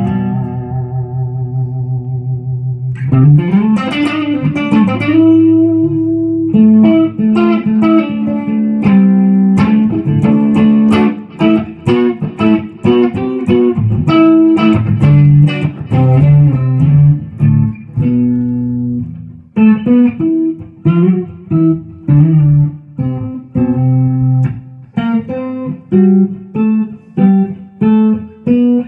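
Amplified 1996 Epiphone Les Paul Custom electric guitar with Gibson 490 humbucking pickups and 50s-style wiring being played: a low note rings for about three seconds, then a note is bent upward and runs of riffs and single-note lines follow. From about two-thirds of the way in, the playing turns to short, clipped chords with gaps between them, about two a second.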